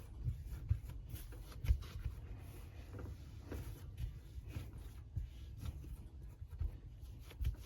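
Hands shaping a sticky sourdough dough on a work surface: soft pats, light taps and rubbing, with one sharper knock about 1.7 s in.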